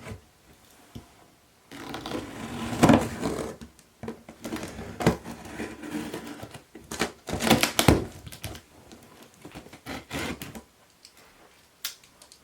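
Cardboard box being cut open with a knife and its flaps pulled open: irregular scraping, rustling and sharp knocks of cardboard, starting about two seconds in and dying away near the end.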